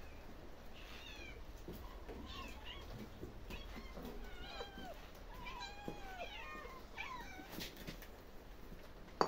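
Domestic cats meowing over and over, short calls that rise and fall in pitch, with two calls overlapping at times, as cats wait to be fed. A sudden loud knock or clatter comes at the very end.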